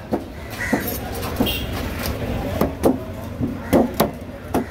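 Heavy broad-bladed knife chopping queen triggerfish flesh on a thick wooden block: about seven sharp, unevenly spaced chops over a steady low background rumble.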